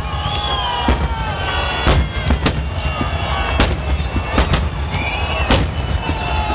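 Fireworks salute: about ten sharp bangs of shells bursting at irregular intervals over a constant low rumble.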